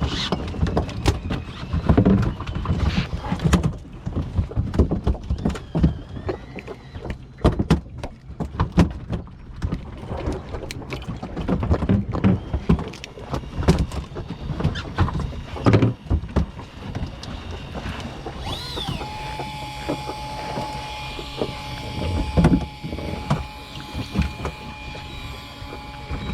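Irregular knocks and thumps on a fishing boat with a low rumble. About two-thirds of the way in, an electric fishing reel's motor starts with a short rising whine and then runs at a steady whine, winding in line, its pitch dropping as it slows at the very end.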